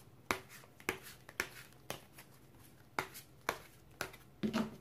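A deck of oracle cards being shuffled by hand, the cards slapping together in separate sharp taps, roughly two a second.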